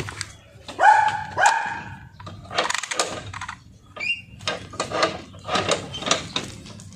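A dog barks twice in quick succession about a second in, then breathes fast in short rough bursts as it works the ground.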